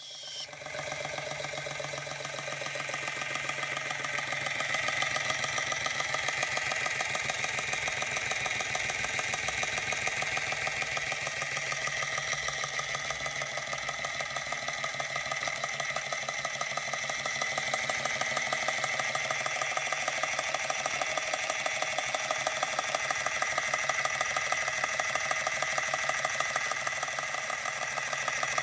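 Antique Georges Carette model 2317 vertical toy steam engine running under steam, with a fast, even chuffing rhythm. It builds up a little over the first few seconds and then runs steadily.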